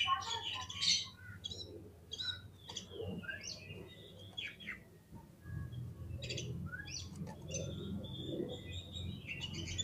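Oriental magpie-robin (kacer) singing: an uneven run of short chirps and clear whistled notes, some sliding in pitch, with a low hum underneath from about halfway through.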